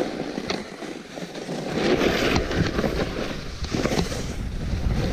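Wind rumbling on a moving camera's microphone, heavier from about two seconds in, with some scuffing and knocks as the camera moves over the snow.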